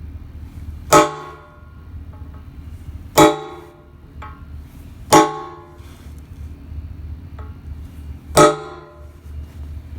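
Steel struck four times at uneven intervals, each a sharp clang that rings on briefly, over a steady low hum.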